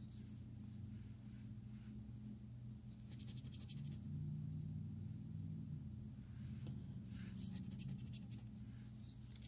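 Faint scratching of an instant lottery scratch-off ticket's coating, in two short spells of quick strokes about three seconds in and again around seven to eight seconds in, over a low steady hum.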